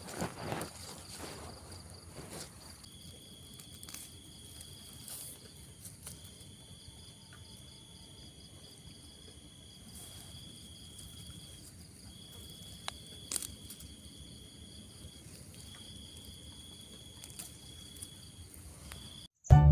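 Insects trilling outdoors: a high, steady note held for stretches of a few seconds each, with short gaps, over a constant fainter high hum. There is a little rustling near the start and a few faint clicks.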